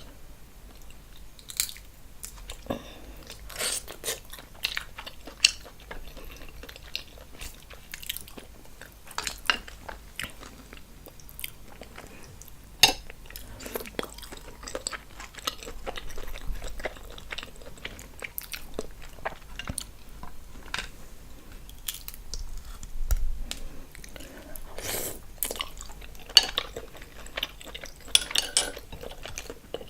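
Close-miked eating sounds: irregular wet chewing, biting and crunching of seafood, with scattered sharp clicks and smacks.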